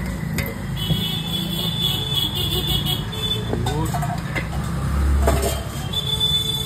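Street traffic noise: a steady low rumble of passing vehicles, swelling heavier about five seconds in, with a thin high tone that comes and goes and faint voices.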